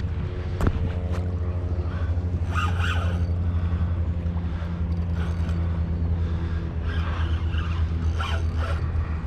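Steady low hum of a boat motor running, with a click about a second in and brief scraping sounds about three seconds in and again near the end.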